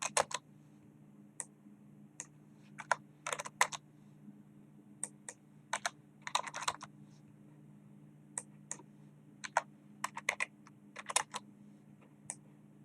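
Computer keyboard typing: irregular keystrokes, some single and some in quick runs of several, over a steady low hum.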